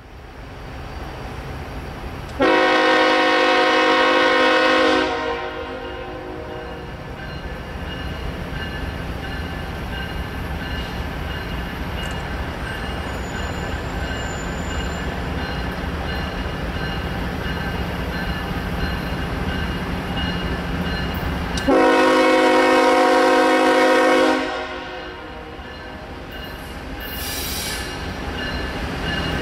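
Horn of a BNSF ES44AC diesel locomotive leading a freight train: two long blasts about twenty seconds apart. Under them runs the steady rumble of the approaching train, growing slowly louder.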